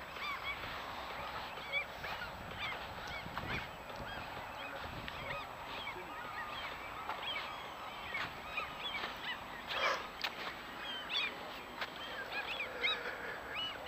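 Gulls calling over and over, many short hooked cries overlapping, with a brief rush of noise about ten seconds in.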